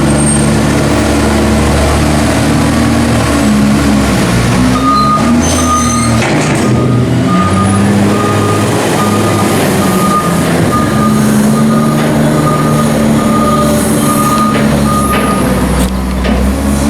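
A heavy farm vehicle's engine runs steadily throughout. About five seconds in, a reversing alarm starts beeping, roughly once a second, and keeps on until near the end.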